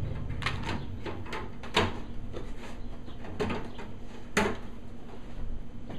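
Perforated sheet-metal shield cover being shifted and seated over a TV's circuit boards: a string of irregular metal clicks and knocks, with the two loudest knocks about two seconds in and again about four and a half seconds in.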